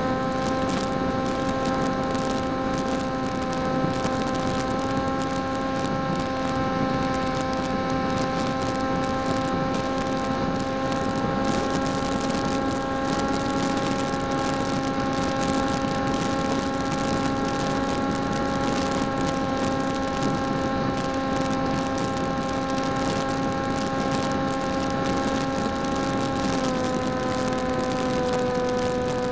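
Electric motor and propeller of a folding PopWing flying wing running in flight, heard through its onboard camera: a steady whine over wind hiss. The pitch steps up slightly about five seconds in and drops a little near the end.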